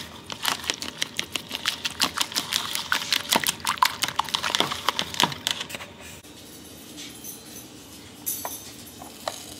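A metal fork beating eggs in a plastic bowl: quick clicking taps, about five a second, that stop about six seconds in.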